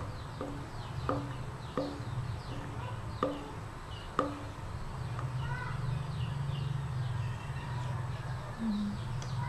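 A spatula knocks and scrapes against a stainless steel saucepan as it is emptied into a glass jug: about six light knocks in the first four seconds. Birds chirp in the background over a steady low hum.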